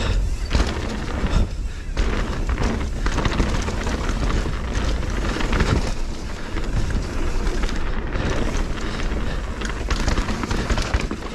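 Wind rushing over the camera microphone of a mountain bike descending a fast dirt flow trail, with the tyres rolling on dirt and frequent short knocks and rattles from the bike over bumps.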